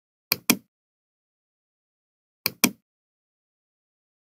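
Computer mouse clicks: two pairs of sharp clicks, each pair a quick press and release, about two seconds apart, with dead silence between.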